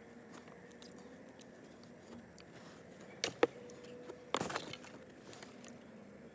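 Gasket material being cut out by hand: two sharp clicks a little over three seconds in, then a short scraping rustle about a second later, against a quiet background.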